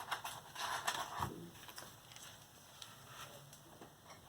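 A few soft paper swishes of a book page being turned, in the first second or so, then quiet.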